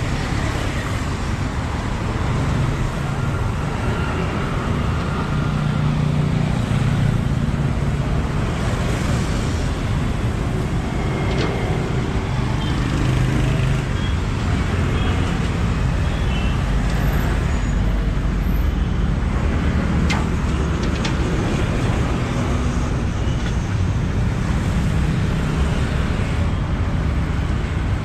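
Steady city road traffic: car and bus engines running past in a continuous rumble, with a couple of brief sharp clicks midway.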